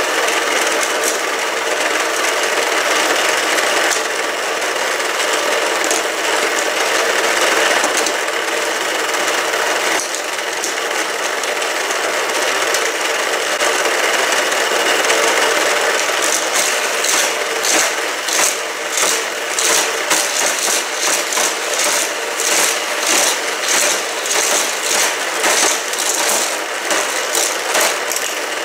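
Motorized power booster of a Hot Wheels Criss Cross Crash track set running, its spinning power wheels whirring steadily as die-cast cars are sent around the plastic track. From about sixteen seconds in, a steady run of sharp plastic clacks, about two a second, joins the whirring.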